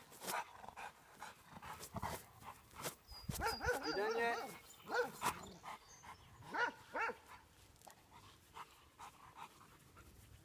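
Rottweiler barking several times, the barks coming mostly between about three and seven seconds in.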